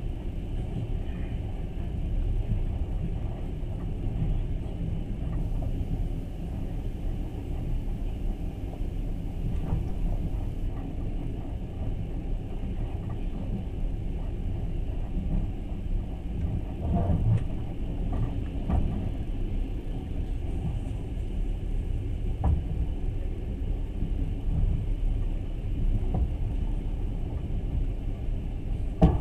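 Steady low rumble of a moving passenger train, heard from inside the carriage, with a few faint irregular knocks and one sharper knock near the end.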